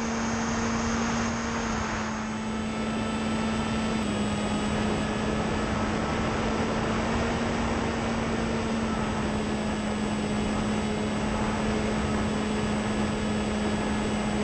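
The Fury FPV flying wing's iFlight Xing 2306 2400kv brushless motor and propeller running at a steady buzzing pitch, heard from the onboard camera with wind rushing over it. The motor's pitch steps down slightly twice in the first few seconds as its speed changes.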